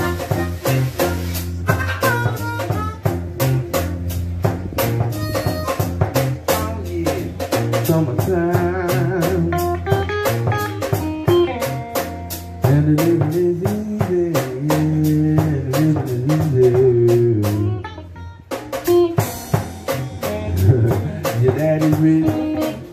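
Live blues band playing: electric guitar over a drum kit. There is a brief stop late on, then the band comes back in.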